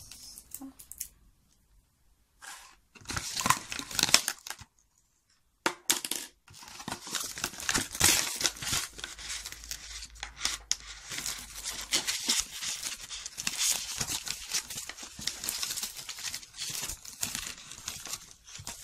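Plastic packaging crinkling and tearing as it is handled and pulled open by hand: a few short bursts at first, then near-continuous crinkling and rustling from about six seconds in.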